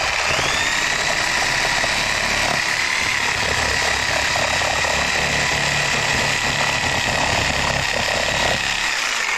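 Electric power tool cutting the ends off scrap metal: its motor whine rises as it spins up at the start, then runs steadily under load with a rough, rattling undertone, and winds down near the end.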